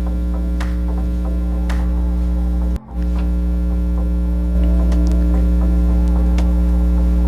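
Steady, fairly loud electrical mains hum, with a few faint ticks of handled items over it. The hum drops out for an instant just under three seconds in and comes back a little louder about four and a half seconds in.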